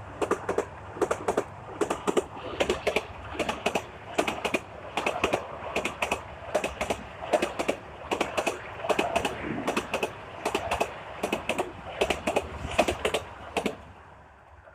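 Train wheels clacking over rail joints in a quick, rhythmic run of clicks as a train passes, with a low rumble underneath; the clacking fades away near the end.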